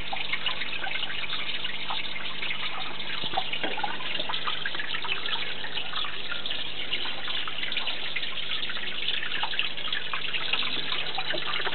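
Small enclosure waterfall running into a water tub, a steady trickle and splash of falling water with small drips, over a faint steady low hum.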